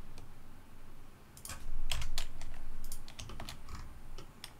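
Computer keyboard being typed on: irregular clicking keystrokes, busiest around two seconds in.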